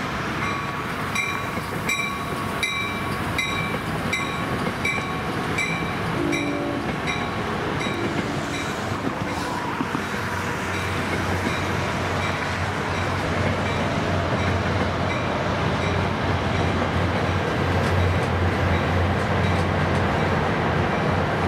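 New Jersey Transit commuter train rolling past, its bell ringing at a steady pace of about three strokes every two seconds for the first ten seconds. A low locomotive drone then builds as the ALP-45DP at the rear of the train draws near.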